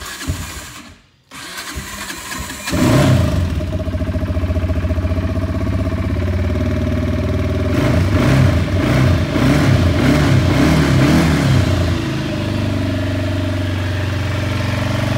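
Kawasaki Brute Force 300 ATV engine turned over by its electric starter for about a second and a half, catching about three seconds in. It runs unevenly with some rises and falls in speed, then settles into a steady idle about twelve seconds in.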